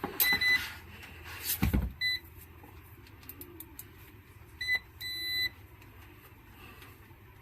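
Multimeter continuity tester beeping as its probes touch the speaker connection's solder joints: four short, high, buzzy beeps, the last about half a second long, showing there is continuity. A single knock between the first two beeps, with small probe clicks.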